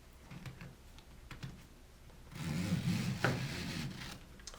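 Fabric strap sliding and rubbing through a buckle for about two seconds from a little past halfway, with one sharp click partway through; faint handling ticks before it.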